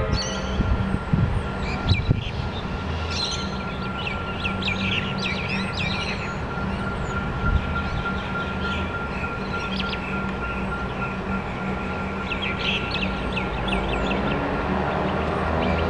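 Small birds chirping over a steady low rumble and a thin, steady high tone, with a hum rising in pitch near the end.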